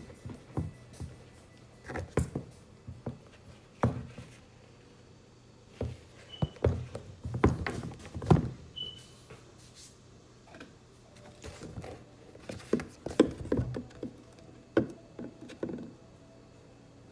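Irregular knocks and thunks of objects being handled and set down on a hard surface, with two brief high squeaks near the middle.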